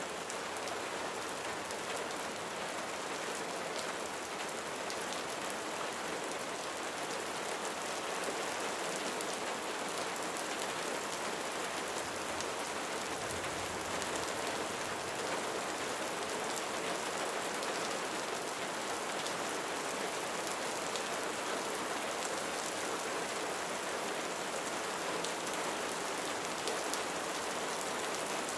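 Steady rain falling on a roof, a continuous even hiss with the patter of individual drops.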